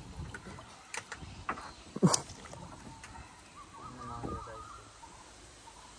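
Splashing and knocks as a gill net is hauled by hand out of the river over the side of a wooden dugout canoe, with a sharp knock about two seconds in. A faint warbling call is heard a little after the middle.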